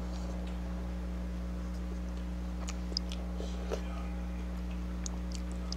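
Quiet eating sounds: a few small clicks and mouth noises from someone chewing noodles, over a steady low hum.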